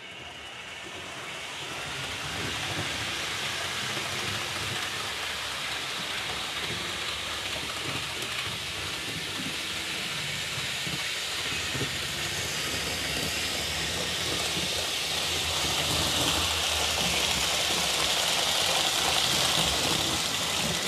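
Märklin Trix TGV model train running fast around the track, a steady rushing hiss and hum of motor and wheels on rails that swells over the first couple of seconds as it is brought up to speed. It runs smoothly without stalling, its dry joints resoldered and its wheel pickups re-flexed.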